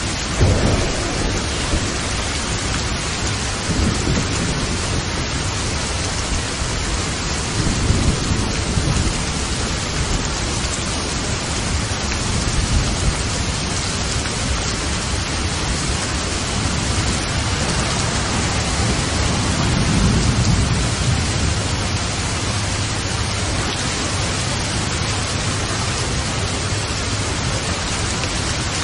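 Steady heavy rain, a dense even hiss, with low rolls of thunder rumbling in several times: near the start, around four and eight seconds in, and again at about twenty seconds.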